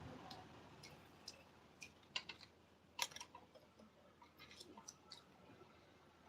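Near silence with a scattering of faint, sharp clicks and ticks at irregular intervals, the strongest about three seconds in.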